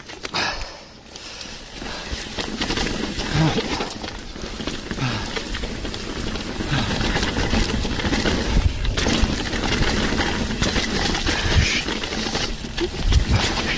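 Mountain bike ridden down a rough dirt trail: tyres rumbling over dirt and roots, with the bike's rattles and repeated low thumps from bumps, loudest near the end.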